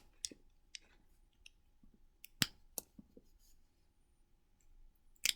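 Plastic Lego bricks clicking and tapping together as they are handled, a few sharp light clicks scattered through, the loudest about two and a half seconds in and near the end.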